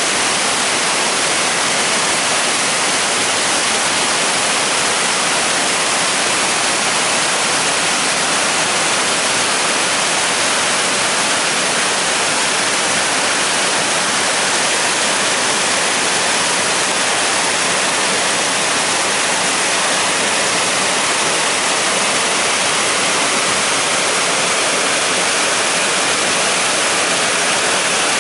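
A mountain river in flood after heavy rain: muddy water pours over a weir and rushes through the rocky channel in a loud, steady, unbroken rush.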